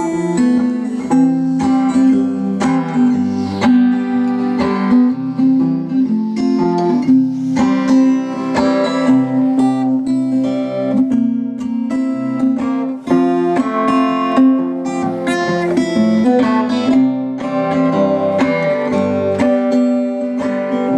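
X-braced Orpheus Valley Perfect Scale parlor guitar with Martin Silk & Steel strings, played as a solo acoustic instrumental: a steady run of plucked notes over a held bass note.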